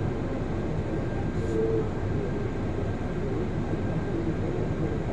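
Bus heard from inside its cabin: the engine running with a steady low rumble and cabin noise.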